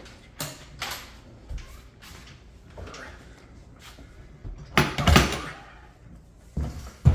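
Clicks and hollow clunks from the engine hood of a Kawasaki SX-R stand-up jet ski being worked loose and lifted off, with a loud clatter about five seconds in and another near the end.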